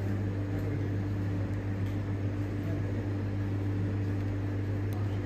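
A steady low hum over a constant hiss, with no change in pitch or level.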